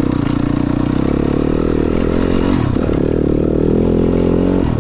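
Yamaha YZ250F motocross bike's 250 cc four-stroke single-cylinder engine pulling hard under throttle. The engine note climbs, drops sharply a little over halfway through, then climbs again and drops once more near the end.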